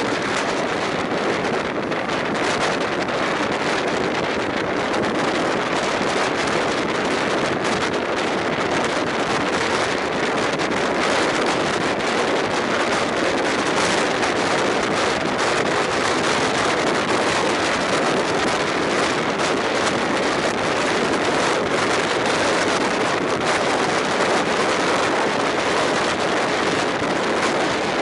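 Passenger train running at speed, heard from an open window of a carriage. The wind rushes steadily over the microphone, mixed with the rolling noise of the wheels on the rails.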